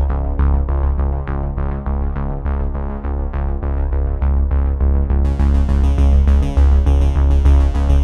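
Background electronic music: synthesizer chords over a steady beat with a strong bass pulse, and a bright, crisp high layer joining about five seconds in.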